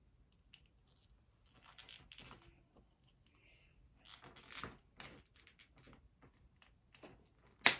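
Small plastic clicks and scrapes of a wrestling action figure being handled as a head is pushed onto its neck peg, with two short spells of rustling and a sharper click near the end.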